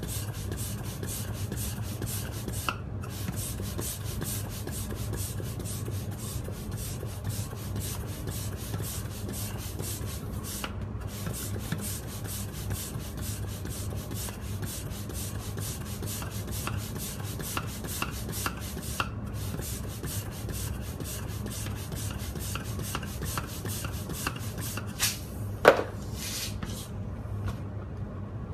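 Manual hand air pump worked in quick rhythmic strokes, several a second, pushing air into a clear bubble balloon. The pumping stops near the end, just after one sharp knock.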